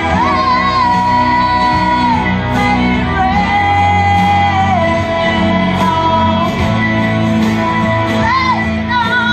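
Live amplified singing by a small vocal group over an instrumental accompaniment, a woman's lead voice holding long notes above a steady bass line.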